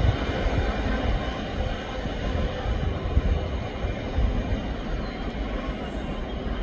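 Freight train hauled by a Class 56 diesel locomotive rolling away: a steady rumble of wagon wheels on the rails with the locomotive's engine running beyond, slowly fading as the train recedes.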